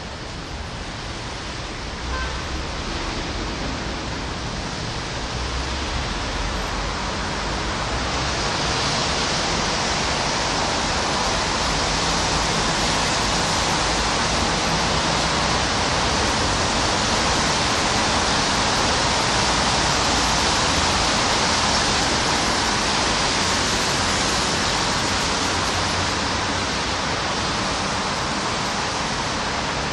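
Steady rain falling, growing louder over the first several seconds and then holding even, with a low rumble underneath.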